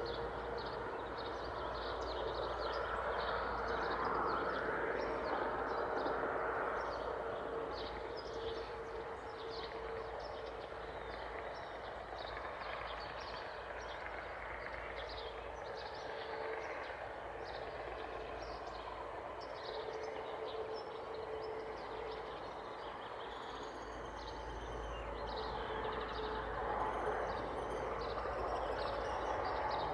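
Outdoor ambience: many short, high bird chirps in quick succession over a steady distant rumble with a faint droning hum.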